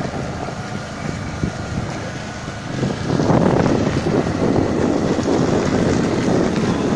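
Wind buffeting the microphone in a steady rough rush, which turns louder and gustier about three seconds in.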